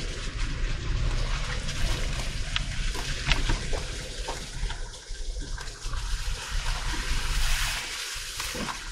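Dacia Duster SUV driving slowly over a muddy off-road track: tyres splashing and sloshing through wet ground, with scattered crackles of grit and a low engine rumble underneath.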